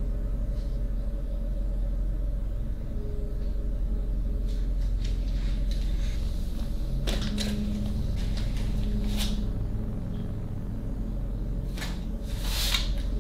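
A door being opened, followed by a few knocks, clicks and a short scraping rustle of handling, the scrape near the end the loudest, all over a steady low hum.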